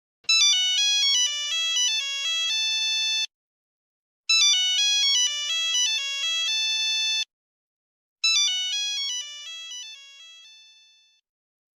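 A phone ringtone: a short electronic melody of quick notes ending on a held note, played three times with about a second's gap between, the third time fading away.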